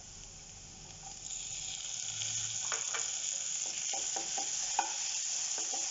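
Onions and chopped tomato sizzling in a nonstick pan. The sizzle picks up about a second in as the tomato goes in, and from about three seconds a wooden spatula stirs with light scrapes and taps against the pan.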